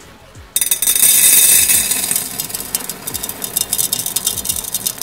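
Small white gravel poured from a plastic bag into a glass lantern: a dense rattle of many small stones hitting the glass bottom. It starts suddenly about half a second in, is loudest for the next second, then thins out as the pour slows.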